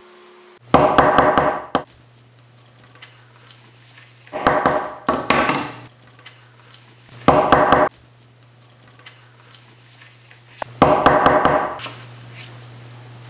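Small hammer tapping a hand hole punch through fabric and a template on a countertop, in four bursts of several quick blows each, one burst per hole.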